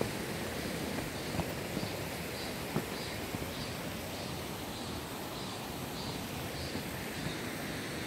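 Steady rushing of a mountain stream, with a few light taps and a faint high chirp repeated about every half second through the middle.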